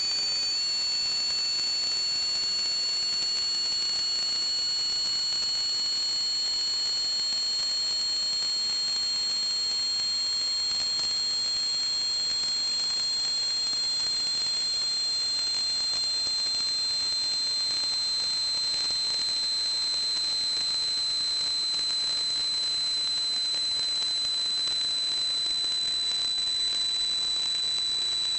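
High-pitched whistling from water plumbing over a steady hiss, several tones at once, one slowly sinking in pitch while another slowly rises.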